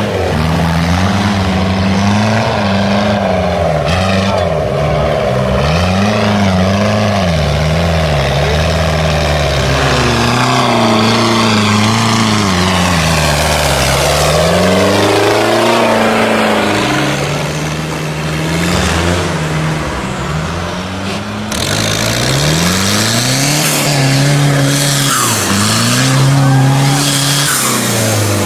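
Modified off-road 4x4 engines revving hard, the pitch climbing and falling again and again under heavy throttle, with a sudden change to a different engine a little after twenty seconds.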